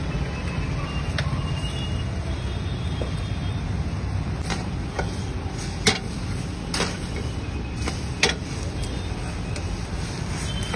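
Metal spatula clicking and scraping against a frying pan several times as an egg-white omelette with bread cooks, the sharpest click about six seconds in, over a steady low rumble.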